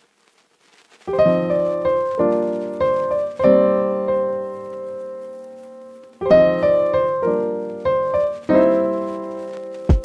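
Background piano music: slow chords that ring and fade, starting about a second in after near silence.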